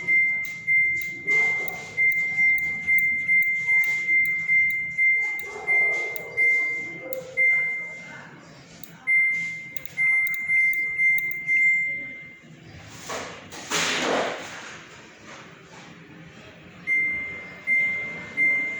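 Samsung WW90K5410UX washing machine's control panel beeping as settings are changed: a short, high single-pitch beep for each step, about two a second at an uneven pace. The beeps pause for a few seconds near the middle, where a brief rushing noise is heard.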